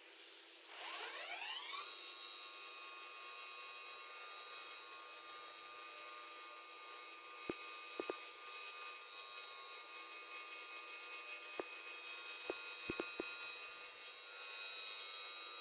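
CNC machining centre spindle spinning up with a rising whine over the first two seconds, then running at a steady high whine. A few sharp clicks come in the second half.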